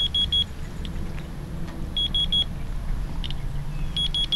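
Inspector handheld Geiger counter clicking irregularly as it counts radiation, with a quick run of four high beeps every two seconds. A steady low rumble runs underneath.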